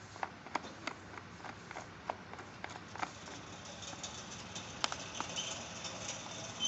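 Irregular light clicks and taps of small hard parts being handled, a few a second at first, with one sharper click about midway. A light scratchy rustle follows near the end.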